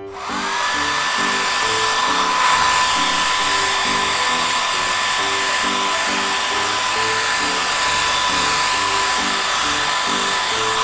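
Hair dryer blowing, its motor whine rising as it spins up at the start, then running steadily until it cuts off suddenly at the end.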